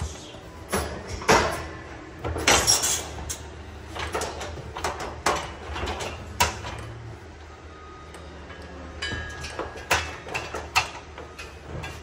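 A steel hydraulic cattle squeeze chute clanking and banging as its gates and headgate are worked and a calf is caught in it. It is a string of sharp metal bangs and sliding clanks, the loudest in the first few seconds.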